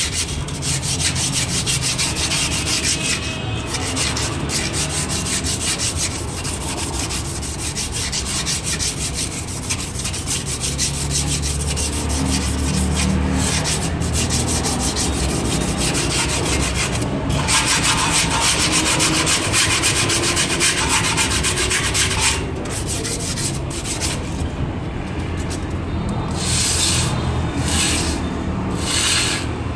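Abrasive polish paper rubbed by hand over the face of a Maruti Suzuki Ciaz's front brake disc to clean it: a fast, continuous scraping. Near the end it breaks into separate strokes about a second apart.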